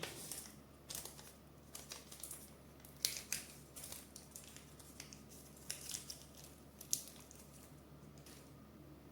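Scattered light crinkles and clicks of packaging and small parts being handled while assembling a 3D printer.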